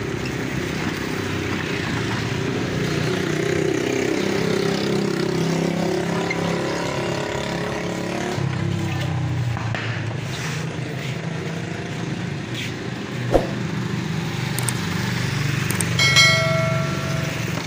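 Steady low drone of motor-vehicle engines from the street. About thirteen seconds in there is one sharp click, and near the end a short ringing chime, the sound effect of a subscribe-button animation.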